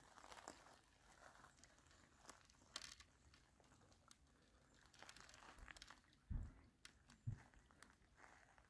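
Near silence with faint crunching of shingle underfoot, and two short low thumps about six and seven seconds in.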